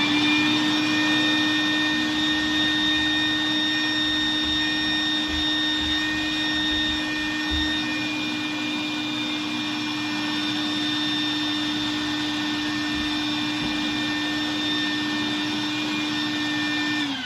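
Vacuum cleaner running steadily while the sawdust and chips are cleaned out of a freshly cut door-handle recess; the motor winds down near the end.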